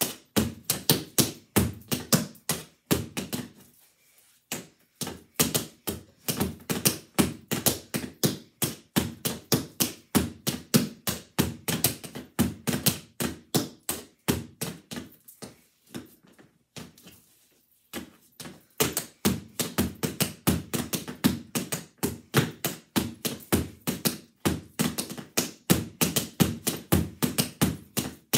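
Tap shoes striking a board in quick, rhythmic tap-dance steps, with two short pauses, about four seconds in and again about seventeen seconds in.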